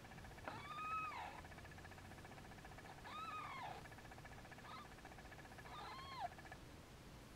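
Newborn kitten mewing: three short high-pitched cries, each rising then falling in pitch, about three seconds apart, with a brief faint squeak between the second and third.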